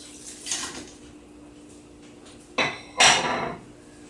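Baby carrots tipped from a bowl into a large stainless steel stockpot, a short rattle about half a second in, followed by two sharp clatters of dishware near the end, the second louder and ringing briefly.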